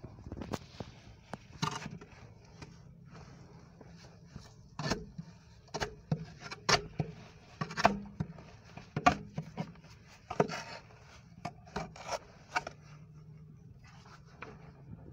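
Gloved hands scraping and tugging at tree roots, leaves and mud at the bottom of a blocked manhole: irregular scrapes, rustles and sharp knocks. A faint steady low hum runs underneath.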